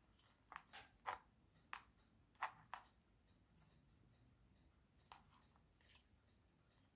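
Faint handling noises: a handful of short clicks and scratches in the first three seconds, then two more around five and six seconds in.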